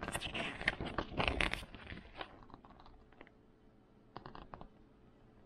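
Plastic packaging crinkling and rustling as it is handled, a dense burst over the first two seconds, then a few light clicks and a short crackling rustle about four seconds in.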